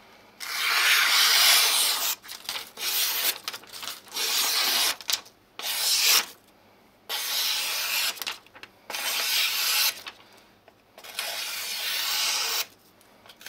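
Freshly sharpened, restored deba kitchen knife slicing through paper, in about seven separate strokes of a second or so each, the first the longest.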